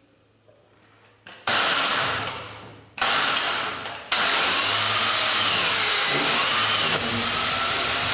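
1930 Ariel VF31 sloper's 497cc single-cylinder OHV four-stroke engine starting: it fires twice and dies away each time, then catches about four seconds in and keeps running steadily.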